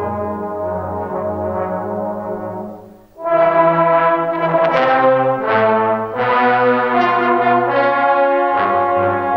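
Trombone choir playing: a soft held chord fades away about three seconds in, then the full ensemble comes in loud with a rich chord and moving harmonies.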